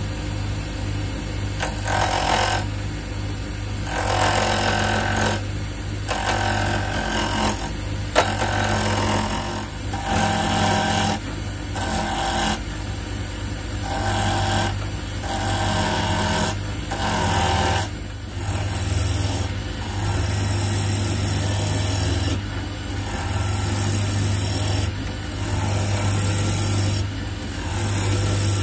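Draper WTL330A mini wood lathe running steadily while a gouge cuts a maple blank on a faceplate, the cutting noise coming and going in repeated passes of a second or two. A single sharp click about eight seconds in.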